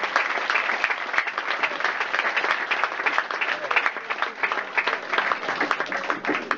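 Audience applauding: many hands clapping in a dense, steady run.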